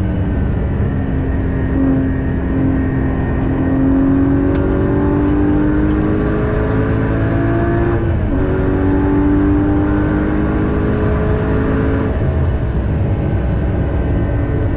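Porsche Cayman GT4's flat-six engine heard from inside the cabin at track speed, its note climbing steadily under load. The note breaks briefly about eight seconds in and then climbs again.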